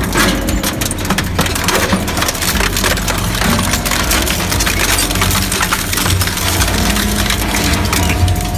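Industrial crusher or shredder running with a steady low hum while it breaks material apart, giving a dense, continuous crackle of cracking and splintering.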